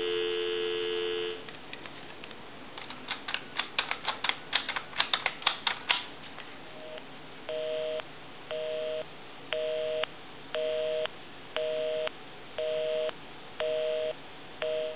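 Telephone line dial tone that stops about a second in, then a quick run of touch-tone (DTMF) digits being dialed. Then a busy signal: a two-tone beep pulsing on and off about once a second, because the number called is busy.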